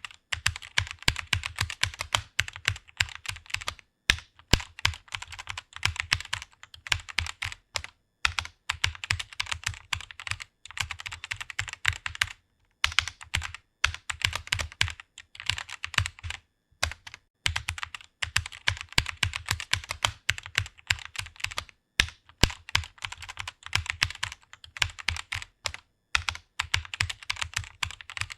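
Rapid typing on a computer keyboard: fast runs of key clicks, several a second, with short pauses between bursts of words.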